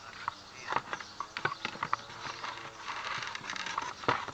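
Small hard objects clicking and clinking together as they are picked through by hand, in an irregular run of sharp clicks, with the loudest one near the end.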